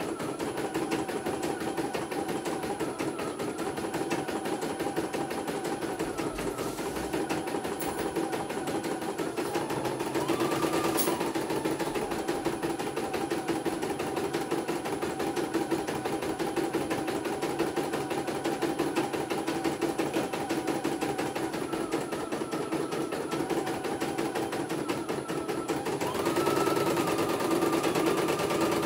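CNY E900 computerised embroidery machine stitching a design: a fast, even rattle of needle strokes, with a faint whine that rises and falls now and then as the hoop moves.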